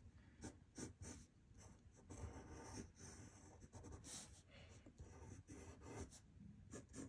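Faint scratching of a graphite pencil on paper, a series of short, uneven sketching strokes.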